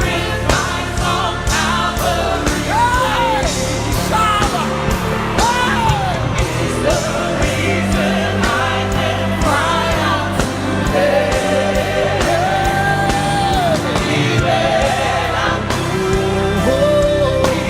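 Live gospel worship music: a band with steady drums and sustained keyboard chords, with singing voices carrying long held and gliding notes.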